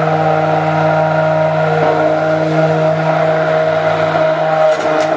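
Hand-held immersion blender running steadily at one speed, its motor holding a fixed pitch as it blends pumpkin cake batter.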